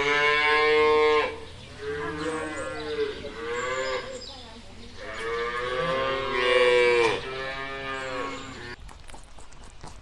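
Cattle mooing: several long moos one after another, overlapping at times. The mooing cuts off suddenly near the end, leaving light clicking.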